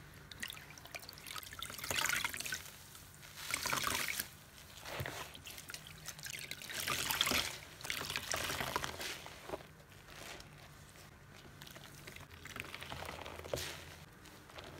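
A large, soapy car sponge squeezed and wrung by hand over a basin of water, squelching as water pours and dribbles out. This happens in several separate squeezes.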